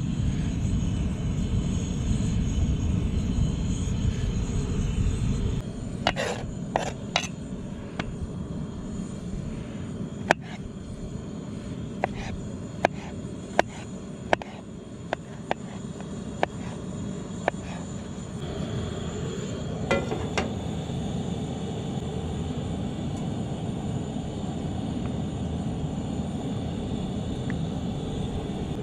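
Coleman propane camp stove burner running with a low roar, cutting off about six seconds in; then a knife slicing potatoes against a plate, a dozen or so sharp clicks at uneven spacing; then a steady burner hiss again.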